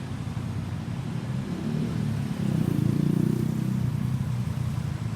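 A road vehicle's engine passing close, louder about three seconds in and then fading a little; no siren is sounding.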